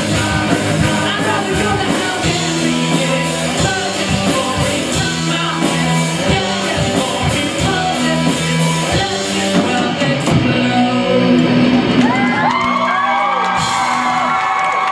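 Live rock band playing, with drums, electric guitars, bass and singing. About ten seconds in the drumming stops as the song ends, and held, bending high tones and shouts carry on over it.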